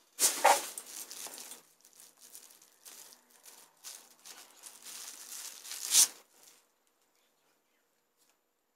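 Plastic bag crinkling and rustling as a laptop battery is pulled out of it. The loudest rustles come just after the start and again about six seconds in.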